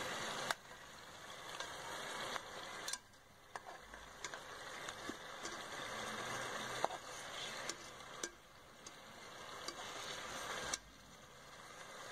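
Fish curry masala sizzling and bubbling in a metal pot, with scattered sharp clicks of metal tongs against the pot as the fish pieces are turned. The sizzle drops away suddenly several times and builds back up.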